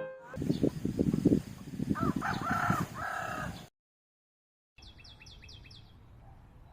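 A rooster crowing about two seconds in, over a loud rough noise. After a brief cut to silence, small birds chirp in quick runs of high notes against quiet rural background.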